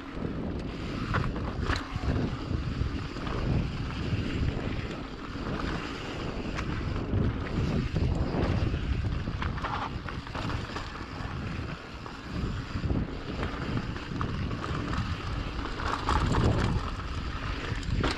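Wind buffeting a GoPro camera's microphone while riding a mountain bike, with the rumble of tyres on dirt and scattered knocks and rattles from the bike over rough trail.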